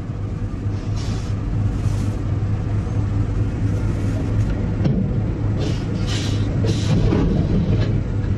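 Steady low engine hum and road rumble of a vehicle driving behind a cargo truck on an icy road, with several short noisy bursts between about five and a half and seven seconds in as the truck slides off the road and tips over.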